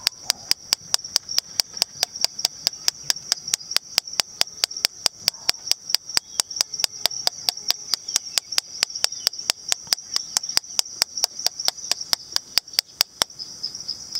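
Rapid, even tapping of a toy hammer on a plastic egg, about four or five taps a second, stopping near the end. A steady high chirring sits underneath.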